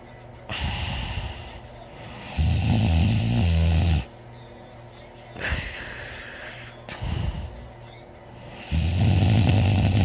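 A person snoring loudly: two long snores about six seconds apart, each lasting about a second and a half, with softer heavy breathing between them.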